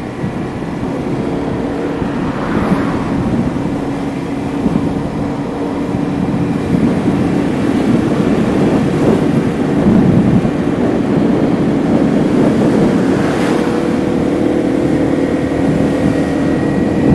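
Motorbike engine running steadily while riding, with wind rushing over the microphone.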